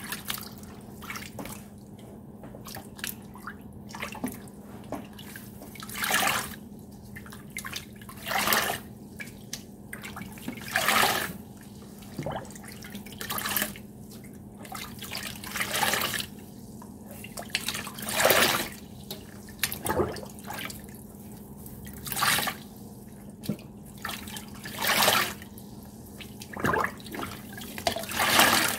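Wet sponges squeezed and rinsed under a running faucet in a stainless steel sink, a splashing squelch about every two seconds over the steady run of water. The sponges are being rinsed clear of Ajax cleaning paste.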